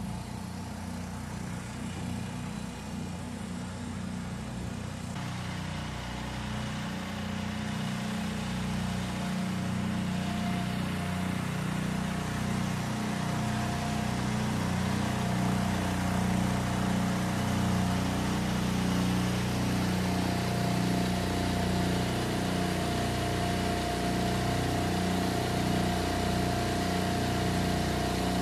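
Portable ground heater cart running steadily: a low engine drone with a steady whine above it, louder from about five seconds in.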